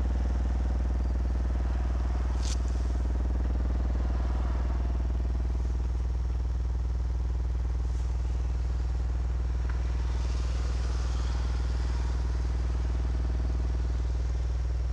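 AudioPipe TXX-BDC4-12 12-inch subwoofer in a ported box playing a 20 Hz test tone, its cone making long visible strokes: a steady, loud low drone with a buzz of overtones. A brief click about two and a half seconds in.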